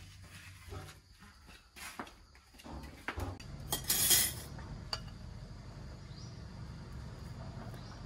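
Plates and cutlery clinking and knocking as dishes are set on a table, then rice being scooped from a pot onto a plate with a plastic paddle, with a short loud scrape about halfway through.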